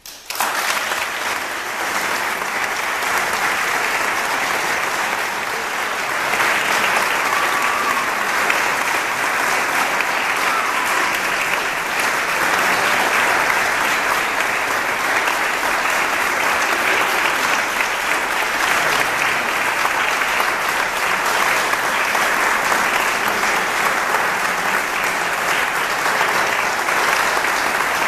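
Audience applauding, with steady clapping that grows slightly louder about six seconds in.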